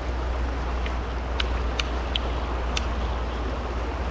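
Fast river current rushing steadily, with a constant low rumble beneath it and a handful of short, faint clicks about one to three seconds in.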